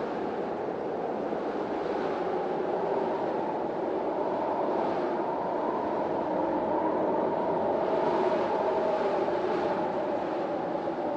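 Wind storm blowing as a steady, dense rushing noise, swelling a little in gusts, most strongly about two-thirds of the way through.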